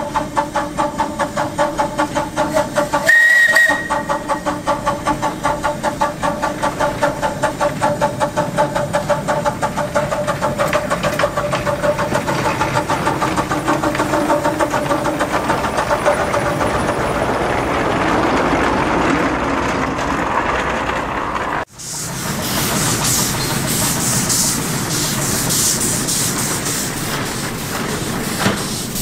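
Small one-foot gauge 0-4-2 tank steam locomotive working, its exhaust beat pulsing at about three a second and quickening until the beats run together. About three seconds in comes one brief high whistle toot. After an abrupt break near the end, loud steady steam hissing takes over.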